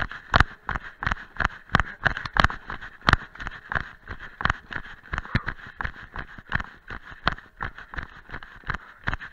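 A runner's footfalls on a dirt forest trail at a fast downhill pace, about three strides a second, each landing a sharp thump, over a steady rushing hiss.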